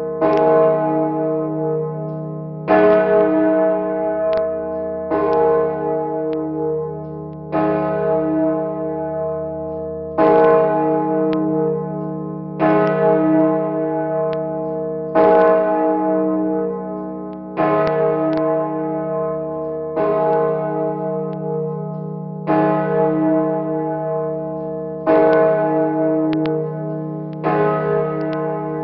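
Large bronze church bell swinging, its clapper striking about once every two and a half seconds; each stroke rings on as a long, deep hum that is still sounding when the next one lands. Heard close up from directly beneath the bell.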